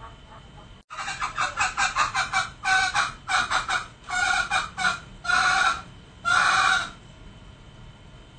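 Male green junglefowl calling. A quick run of short clucking notes starts about a second in and gives way to about four longer, louder calls.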